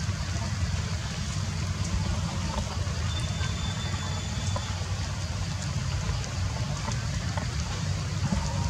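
Steady outdoor ambience of a rain-soaked forest: water dripping through the leaves over a steady low rumble. A faint thin high tone lasts about a second and a half near the middle.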